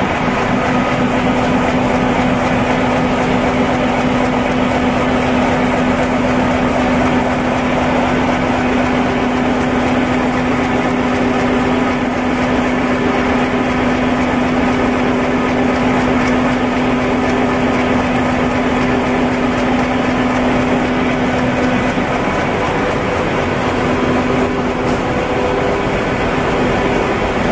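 High-speed inline flexo printer slotter die-cutter folder gluer for corrugated cartons running at production speed: a steady, dense mechanical noise with a low hum that becomes broken near the end.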